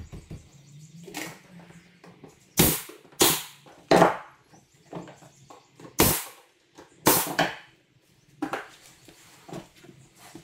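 Nail gun firing about five sharp shots an irregular second or so apart, driving nails through trim into a wooden cabinet panel.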